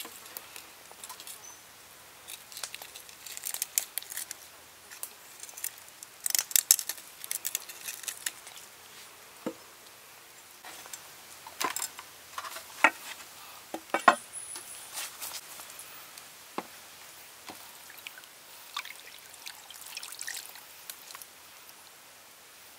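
Fish being handled with a knife and a stainless steel tray: scattered clicks, knocks and scrapes, with a brief metallic ring about midway, and light splashing of water as the fish are rinsed in the tray near the end.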